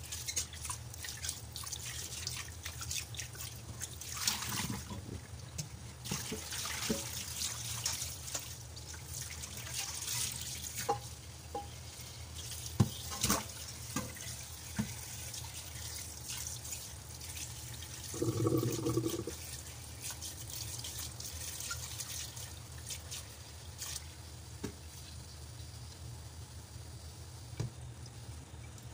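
Tap water trickling into a stainless steel pot in a sink, splashing and dripping as hands rub sea cucumbers in the water. A few sharp knocks stand out a little under halfway, and a short low hum comes about two-thirds of the way in.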